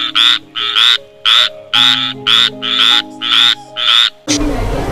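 A frog croaking over and over in short calls, about two to three a second, over faint background music. The croaking stops abruptly about four seconds in and a low steady rumble takes over.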